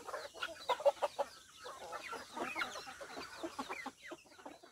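A flock of free-range native chickens clucking, many short calls overlapping one another.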